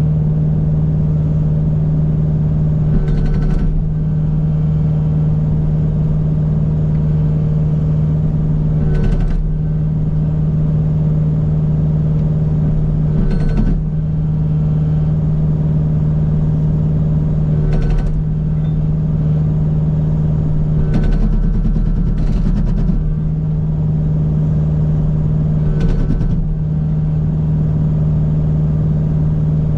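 Kubota U55 mini excavator's diesel engine running steadily under load, with short bursts from the Agrotk 680 hydraulic hammer breaking up a rock every few seconds.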